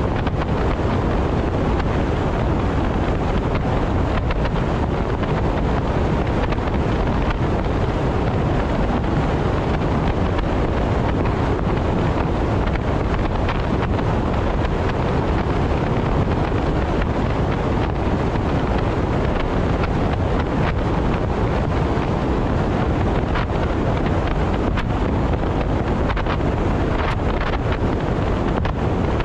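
Steady wind and road noise of a vehicle travelling at expressway speed, heavy in the low end, with wind buffeting the microphone.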